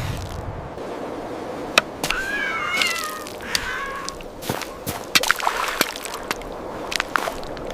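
A cat meowing in a few wavering high calls about two to four seconds in, with scattered sharp clicks and knocks around them.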